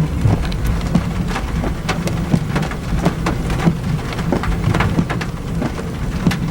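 Heavy rain hitting a Jeep, heard from inside: many sharp, irregular drop impacts, several a second, over a steady low rumble from the vehicle.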